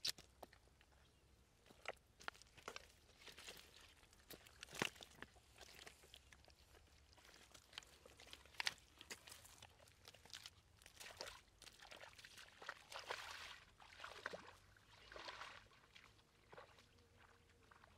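Faint, irregular wet slaps, clicks and squelches of hands, feet and catfish in shallow mud and water, with a few longer splashy rushes in the later part.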